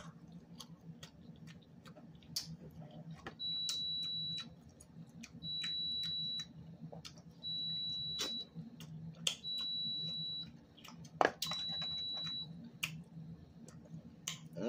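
An electronic beeper sounds five times, each a steady high beep about a second long, about two seconds apart. Small clicks and cracks of crab shells being broken and eaten sound in between.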